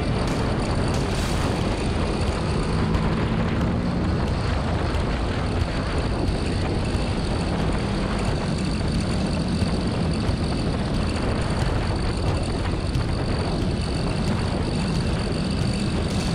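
Motorcycle engine running at speed on a lap, its note wavering slightly, under heavy steady wind rush over the onboard microphone.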